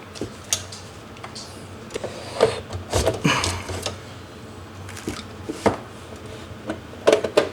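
Hands handling a QNAP TS-451+ NAS enclosure and its removed drive trays: scattered plastic and metal clicks and knocks, with a cluster of sharper knocks near the end.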